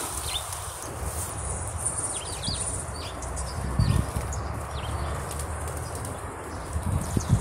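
A flock of feral pigeons and doves feeding, with wings flapping in louder bursts about four seconds in and again near the end as birds take off. Several short, high chirps from small birds are heard over a steady low noise.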